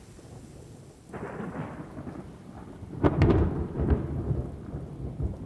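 Thunder over steady rain: a low rumble swells about a second in, then a sharp crack about three seconds in rolls on into lesser rumbles.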